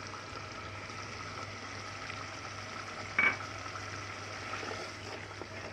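Chicken korma gravy bubbling and sizzling in an aluminium pot, a steady hiss, with one short clack about three seconds in.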